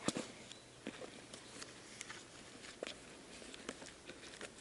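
Faint scattered taps and rustling as a small hatchet is slid down into a nylon MOLLE holder strapped to a backpack, with the sharpest tap right at the start.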